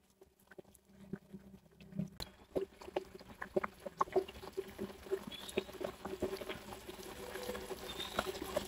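Pieces of skin-on pork frying in hot oil, sizzling with sharp pops and spatters that start about a second in and grow more frequent; the skin on the meat makes the oil spatter.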